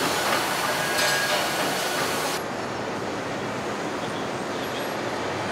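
Factory-floor noise in a truck assembly hall: a steady machinery hum with a few metallic clinks and faint tones in the first two seconds. About two and a half seconds in, the high clatter drops away, leaving a duller steady hum.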